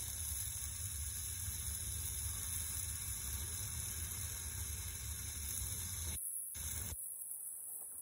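Steady hiss of a small jeweler's torch flame heating a copper tube joint. Most of the sound drops out briefly about six seconds in and again near the end.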